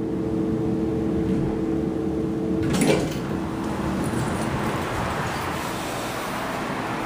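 Mowrey hydraulic elevator arriving at a floor: a steady hum stops with a click about three seconds in, then the car doors slide open with an even rushing noise.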